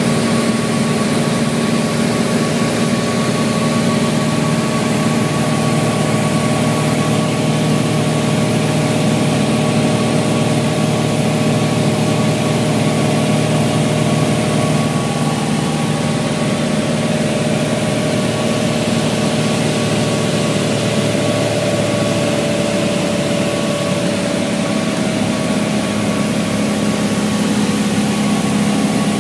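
Cockpit drone of a single-engine propeller airplane's engine and propeller running steadily in flight, with small shifts in pitch in the second half.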